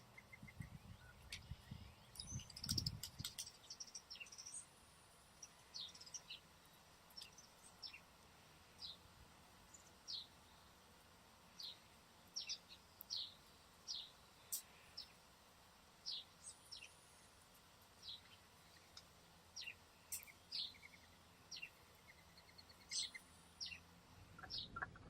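A small songbird chirping: short, high, downward-sliding notes repeated every half second to a second, fairly faint. A few low thumps come about two to three seconds in.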